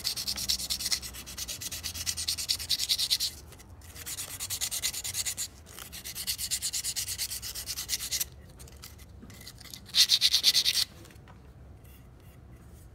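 Quick back-and-forth rubbing strokes cleaning up a servo motor shaft by hand, in four runs with short pauses, stopping about two seconds before the end. The shaft is scratched up a hair and an encoder spacer is not sliding down it cleanly.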